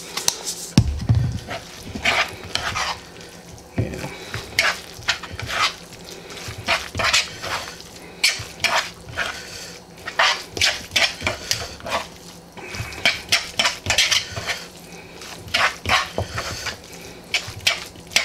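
A metal spoon stirring and scraping a thick, moist chicken salad in a plastic mixing bowl, with irregular clinks and scrapes. A dull thump about a second in.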